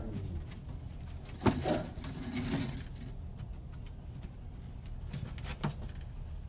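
A few scattered knocks and clatters of small household objects being bumped, with one sharp knock about a second and a half in and another near the end, over a steady low hum.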